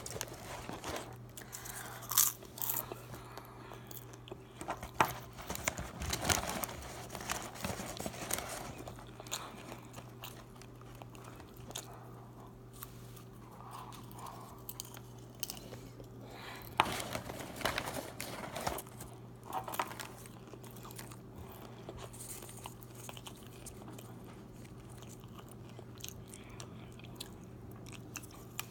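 A person chewing and crunching microwave popcorn close to the microphone, in irregular crunches that come most often in the first twenty seconds or so and thin out later, over a steady low hum.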